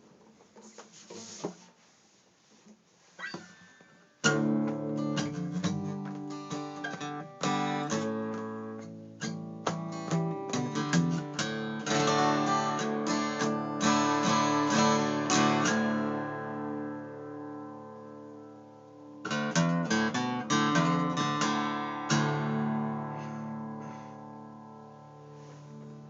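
Guitar playing a run of chords and single notes. It starts suddenly about four seconds in after faint handling noise, eases off, picks up again past the three-quarter mark, and ends on a chord left to ring.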